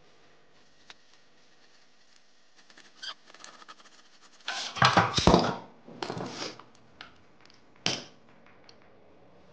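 Metal clinks and clatter of a small hub puller and hand tools being worked on a Mk4 VW Golf's rear wheel hub, loudest about halfway through, with a single sharp knock near the end.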